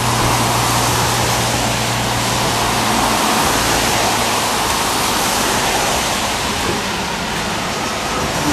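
Steady rushing hiss of rain and car tyres on a wet road as vehicles pass. A low engine hum fades out a couple of seconds in.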